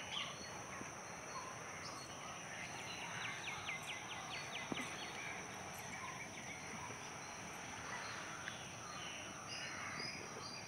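Outdoor garden ambience: a steady high insect drone with birds calling now and then, including a quick run of about ten short chirps around three seconds in.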